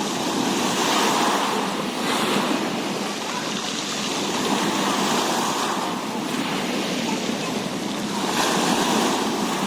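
Rushing, splashing water with wind buffeting the microphone, swelling in surges every two to three seconds.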